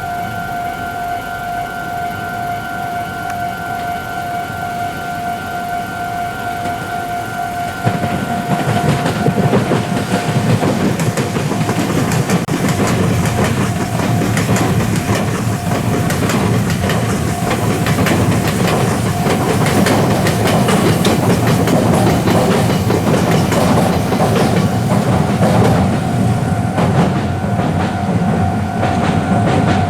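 A level crossing warning bell rings steadily. About eight seconds in, a Meitetsu electric train arrives and passes loudly over the crossing, its wheels clacking over the rails and largely drowning out the bell.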